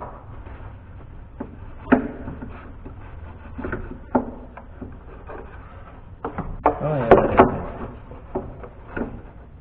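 Hand work under a car's hood: scattered knocks and clatter of plastic and metal parts being handled around the engine's plastic cover. A denser cluster of knocks comes about six to seven seconds in.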